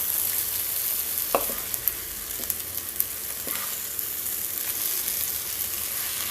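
Egg and capsicum masala sizzling in hot oil in a kadai while a spatula stirs and turns it from the bottom, with a few short scrapes of the spatula against the pan.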